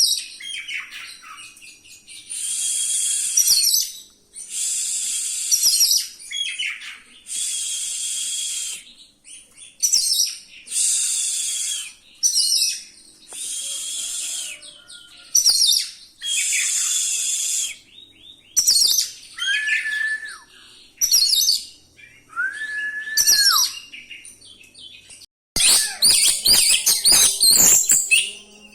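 Oriental magpie-robin (kacer) singing a rolling song full of mimicked phrases: a string of harsh, scratchy phrases a second or two long, two clear held whistles about two-thirds of the way through, and a fast run of rapid chattering notes near the end.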